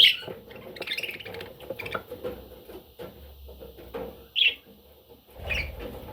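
Budgerigar chirping: four short, high chirps spread over several seconds, the loudest right at the start, with faint clicks and rustling between them.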